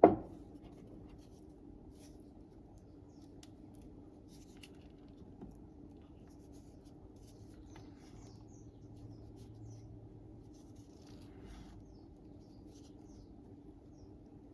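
A single sharp knock with a short ring at the start, then faint scattered clicks and light scrapes of hands-on kitchen work.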